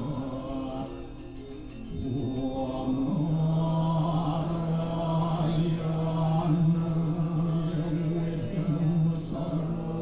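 Balinese Hindu prayer mantras chanted by a group of worshippers, carried on a low, steady held note that grows louder about three seconds in.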